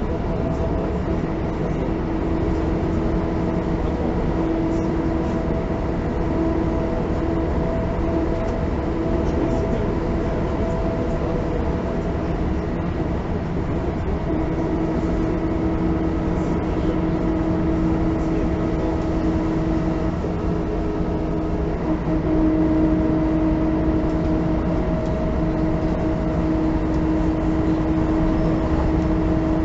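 Diesel engine of a Mercedes-Benz O405N1 city bus running steadily, heard from inside the passenger cabin. Its tone shifts and it grows a little louder about two-thirds of the way through.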